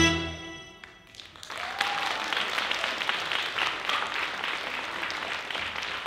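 Dance music ends with a last note dying away, and about a second and a half in an audience breaks into steady applause.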